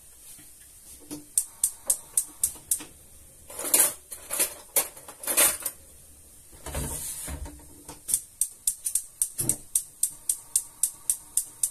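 Kitchen utensil clatter: runs of sharp, evenly spaced taps, about three a second at first and about four a second in the last few seconds, with a few short scraping sounds in between.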